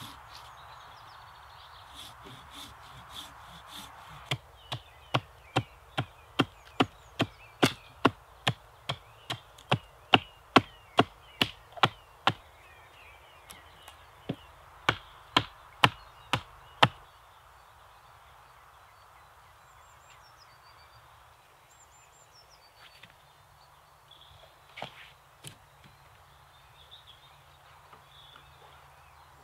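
Axe chopping wood on a chopping stump: a quick run of sharp strikes, about two to three a second, a short pause, then a few more strikes. Faint bird chirps follow.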